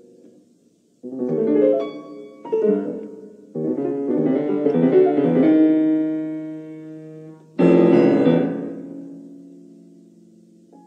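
Solo piano music: a few chords struck one after another, a fuller passage, then a loud chord near the end that rings on and slowly fades.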